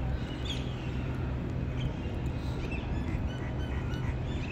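Birds chirping in short calls, a couple about half a second in and several more in the second half, over a steady low outdoor rumble.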